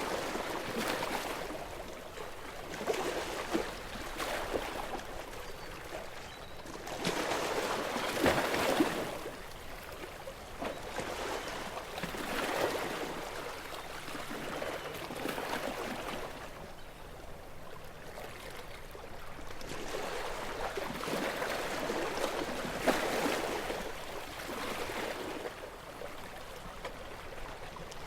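Gentle sea waves washing up a shore and drawing back, with a swell of splashing and fizzing water every few seconds.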